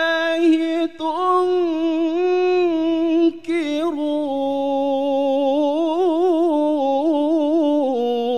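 Man reciting the Qur'an in melodic tilawah style, drawing out the word "Allah" in "fa ayya ayatillahi" as one long melismatic phrase. Held notes broken by two short breaths give way in the second half to quick wavering ornaments, and the pitch drops lower near the end.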